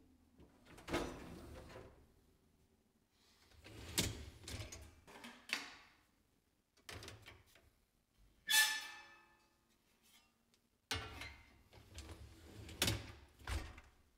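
Wire racks of a dishwasher being slid in and out and loaded with computer parts: a series of separate clunks and rattles, one about halfway through ringing with a metallic tone.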